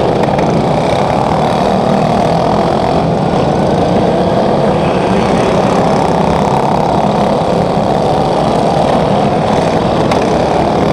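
Engines of several racing riding lawn mowers running together as they lap a dirt track, a steady dense drone heard across a large indoor arena.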